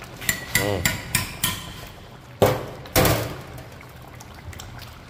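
Metal spoon knocking against a large metal cooking pot: a quick run of ringing clinks in the first second and a half, then two louder knocks about two and a half and three seconds in.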